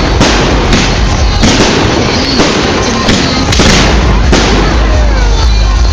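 Fireworks going off in quick succession: a dense, loud run of bangs and crackling with no pause.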